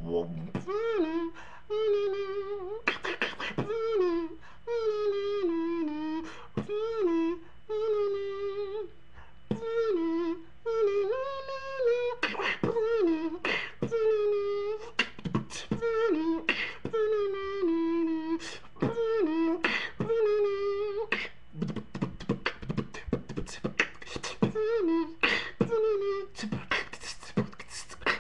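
Dubstep beatboxing: a mouth-made wobble bass, a held vocal tone that wobbles and swoops up and down in pitch, broken every second or so by sharp vocal kick and snare hits. About 21 seconds in, the wobbling tone stops and only the percussive beatbox hits carry on.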